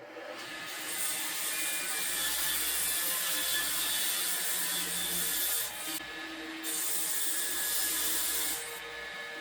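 Table saw running and ripping a wooden board, the blade hissing through the wood. The hiss breaks off briefly about six seconds in, then resumes, and near the end the saw runs on with less hiss as the cut finishes.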